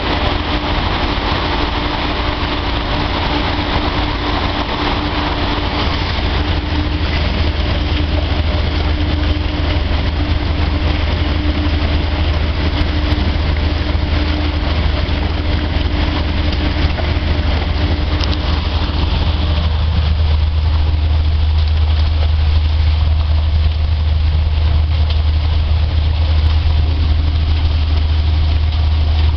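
Heavy machinery running steadily: a loud deep hum with a steady tone above it and a wash of mechanical noise. About two-thirds of the way through the higher noise eases off and the deep hum grows stronger.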